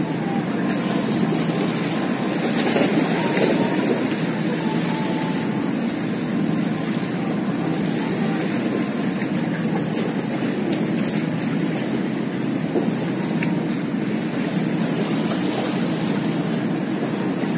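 Steady rushing noise of wind and sea water washing against shoreline rocks.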